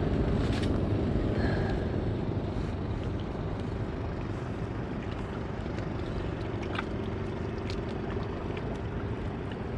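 Steady low hum of a motorboat engine on the water, easing slightly in level over the first few seconds, with a few faint ticks.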